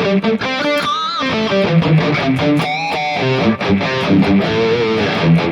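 Electric guitar played through a Harley Benton DNAfx Git Pro amp modeler with a distorted tone: fast single-note runs with string bends and a held note with vibrato near the end.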